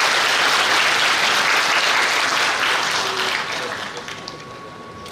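Audience applauding, loud at first and dying away about four seconds in.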